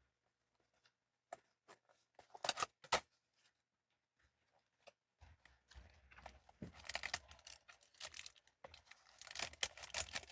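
Blind-box toy packaging being torn open and crinkled by hand: a few sharp crackles early on, then a long stretch of steady tearing and crinkling.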